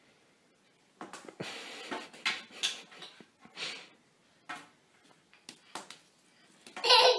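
A baby laughing near the end, after a string of short breathy noises and a few light taps.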